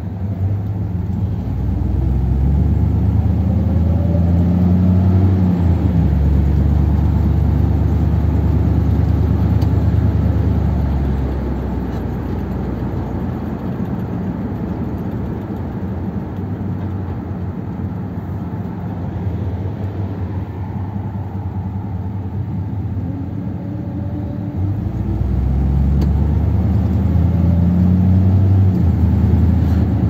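1957 Ford Thunderbird's V8 heard from inside the cabin, pulling away and rising in pitch as it accelerates for the first ten seconds. It then settles to a quieter cruise and picks up again near the end.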